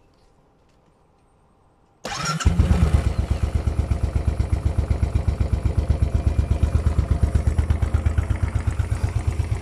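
Royal Enfield Continental GT 535's single-cylinder engine, fitted with a Wild Boar exhaust, starts about two seconds in after a brief crank. It settles into a loud, steady idle with an even beat of exhaust pulses, running on the cold-start setting.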